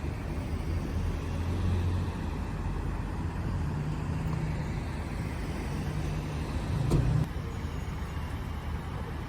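A motor vehicle's engine running with a low, steady rumble over traffic noise, with a short sharp knock about seven seconds in.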